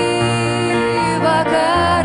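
Background music: a Lithuanian song in a passage between its sung lines, a melody over a steady bass.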